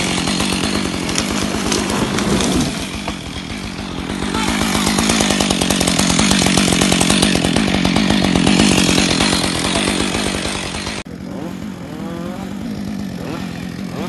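Gasoline chainsaw running and cutting, its engine pitch steady and its loudness swelling and easing as it works. The sound drops abruptly about eleven seconds in, and the saw keeps running more quietly after that.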